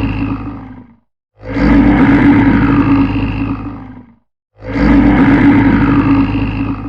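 Bear roaring, the same roar played again and again: one fades out in the first second, then two more follow about three seconds apart. Each starts suddenly and trails off.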